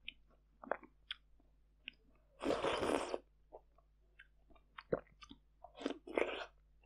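Close-miked eating sounds of fermented sweet rice soup with glutinous rice balls taken from a spoon: wet mouth clicks and chewing, a loud slurp of under a second near the middle, and two shorter slurping bursts near the end.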